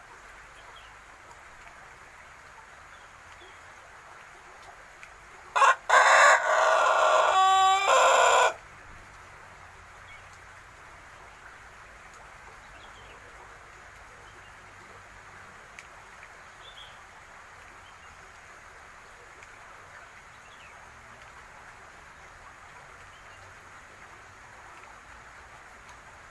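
Young Pelung rooster, about six months old and still learning to crow, giving one crow of about three seconds: a brief first note, then a long drawn-out call. Otherwise only a faint steady background hiss.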